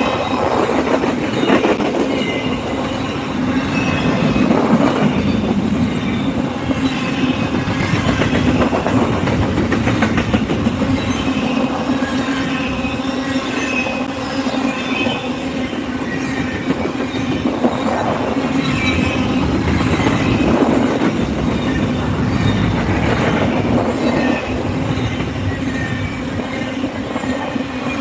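Double-stack container freight train's well cars rolling past: a steady, loud rumble and clatter of steel wheels on rail, with short high-pitched wheel squeals scattered throughout.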